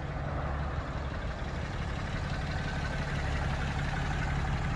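Pickup truck engine idling steadily, a low even hum.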